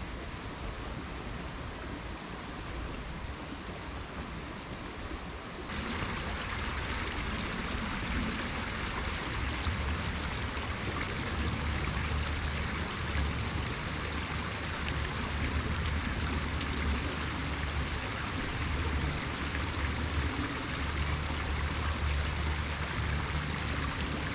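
River water flowing steadily. It gets louder and brighter about six seconds in, and a low rumble comes and goes underneath.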